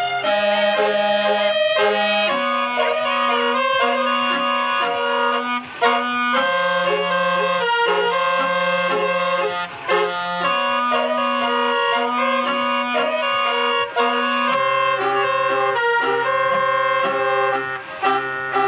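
Music with a reedy, clarinet-like lead melody over held low bass notes that change every second or two.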